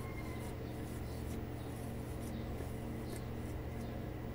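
Hand kneading a soft minced chicken and potato mixture in a glass bowl, faint irregular squishing over a steady low hum.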